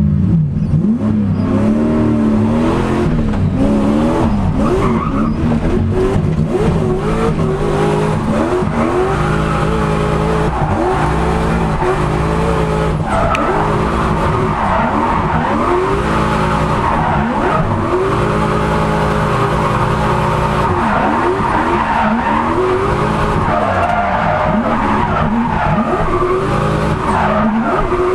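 Turbocharged 1UZ-FE Lexus V8 of a drift car, heard from inside the cabin, pulling away from the start and then revving up and down over and over through a drift, with tyres squealing and skidding.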